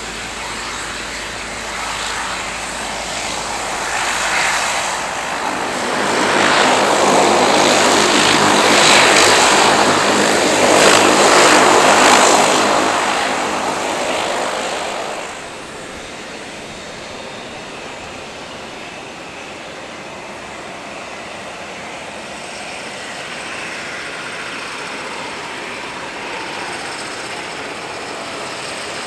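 Bombardier Dash 8 Q300 turboprop taxiing close by, its propeller drone swelling to a peak from about six to fifteen seconds in, then dropping off abruptly. After that comes a quieter steady hum of an Airbus A319's jet engines as it taxis.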